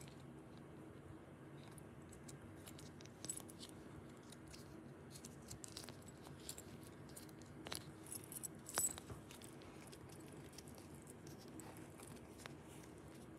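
Avocado dimple fidget toys being pressed and handled, giving faint scattered clicks and taps with a few sharper clicks; they make little sound. A low steady room hum runs underneath.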